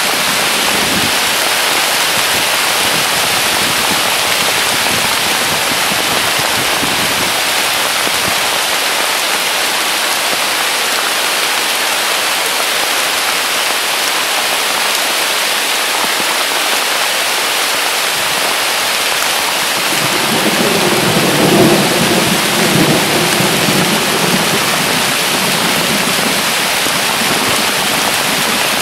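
Steady rain falling, with a low rumble of thunder rising about two-thirds of the way through and fading a few seconds later.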